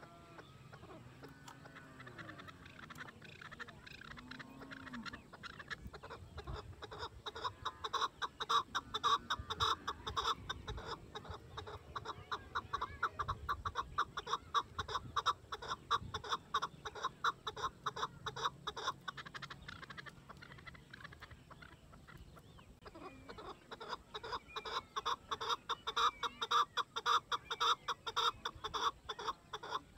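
Chukar partridge calling: long runs of rapid, repeated 'chuk-chuk' notes that build up and grow louder. There are two bouts with a short pause between them, about two-thirds of the way through. A few softer, scattered call notes come before the first run.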